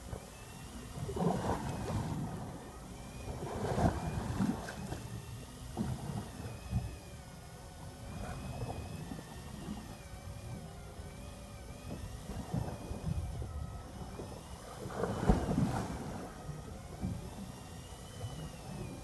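Wind gusting over the microphone and sea water sloshing against a small fishing boat's hull, loudest in surges about a second, four seconds and fifteen seconds in, over a faint wavering high whine.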